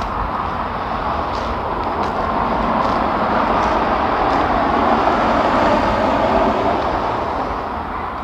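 Traffic going by on the road bridge over the wash: a steady rush of tyre and engine noise that swells to a peak past the middle and then slowly fades.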